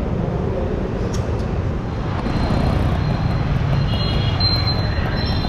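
Steady traffic noise of a busy city street, with engines and motorbikes running and a few short high beeps near the end.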